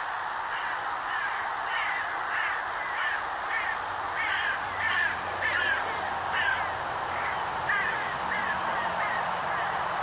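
A crow cawing in a long series of about two harsh caws a second, louder around the middle, over a steady hiss.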